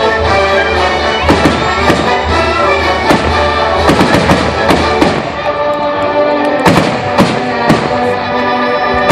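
Aerial firework shells bursting in a rapid series of sharp bangs over loud music; the bangs thin out briefly a little past the middle, then resume.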